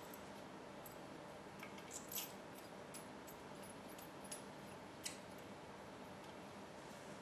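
A few light metallic clinks and clicks of steel bolts and washers being handled, the sharpest about two seconds in and another about five seconds in, over a faint steady hiss.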